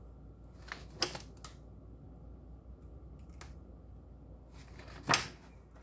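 Faint low room hum with a few short clicks and rustles, the loudest a brief rustle about five seconds in.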